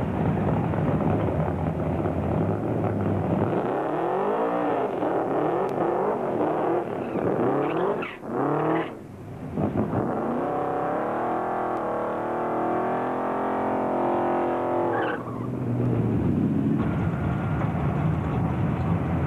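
Drag-racing American muscle-car engines revving hard and idling, their pitch sweeping up and down over and over. The sound breaks off briefly twice, around eight and nine seconds in.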